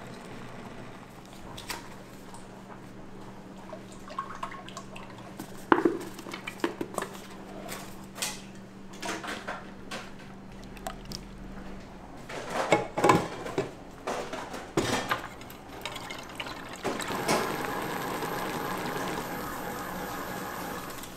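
Dessert preparation in a kitchen: scattered knocks and clinks of utensils and containers, with liquid being poured. A low steady hum runs under the first half and stops about halfway through.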